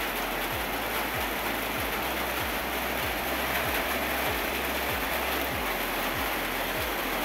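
Steady rain falling, an even hiss of rainfall. A soft low thump repeats about twice a second underneath.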